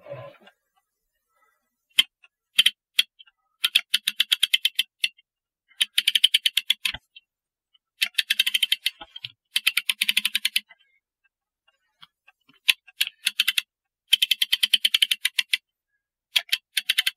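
Clock mainspring winder's ratchet clicking in quick runs of about ten clicks a second, with short pauses between runs, as its crank is turned against the tension of the mainspring.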